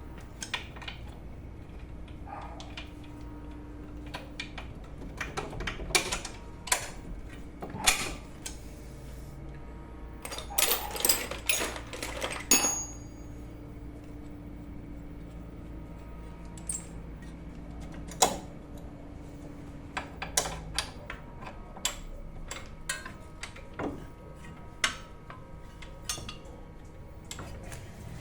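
Hand tools and steel bolts clinking and knocking as the bolts at the foot of a front strut are fitted: scattered sharp metallic clicks, a quick flurry about ten to twelve seconds in that ends in a short ringing clink, then lighter ticks.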